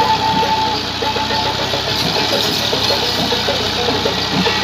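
Ghazi 480 tractor's three-cylinder diesel engine running steadily under load while the tractor pulls a rotavator through the soil, with a constant irregular rattling.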